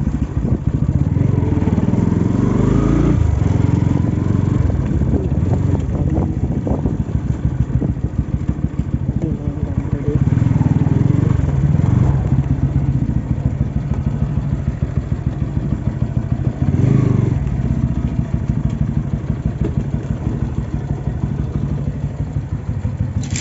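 Motorcycle engine running while the bike is ridden slowly, its pitch rising and falling a few times with the throttle.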